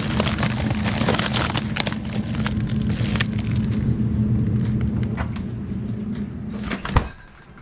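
Plastic bags and frozen food packages rustling and being shoved around inside a refrigerator's freezer compartment, crinkling and clicking over a steady low hum. The freezer door shuts with a single thump about seven seconds in.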